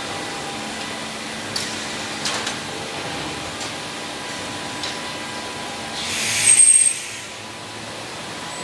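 Steady hum of a door-blank press line's machinery with a few sharp clicks, then about six seconds in a loud hiss of compressed air that swells for about a second and cuts off, as the vacuum suction cups of the panel-laying gantry let go of the skin panel.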